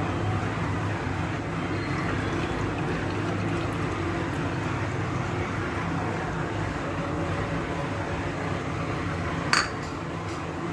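Steady liquid noise in a kitchen, with one sharp clink about nine and a half seconds in.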